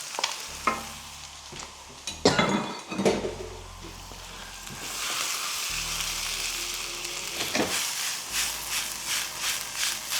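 Vegetables frying over high heat in hot oil with ginger, garlic and chilli. There are a few knocks of a utensil against the pan in the first three seconds, and the sizzle grows louder about five seconds in. Near the end comes steady stirring, about two strokes a second.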